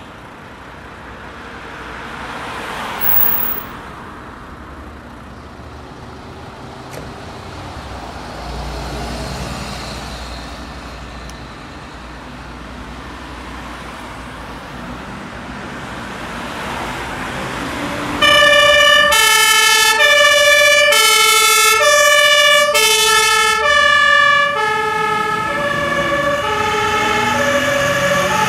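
Fire-truck diesel engines running as the trucks leave the station, with traffic noise around them. About 18 s in, a German two-tone siren (Martinshorn) starts loudly and alternates steadily between a high and a low note about once a second. Near the end a second two-tone siren joins in out of step with the first.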